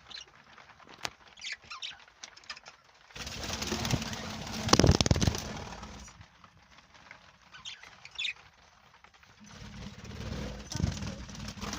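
Budgerigars giving short high chirps, with two longer spells of wing flapping, the louder one about three to six seconds in and another starting near the end.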